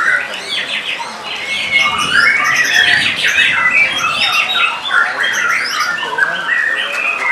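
White-rumped shama singing a fast, unbroken stream of varied whistled and chattering phrases.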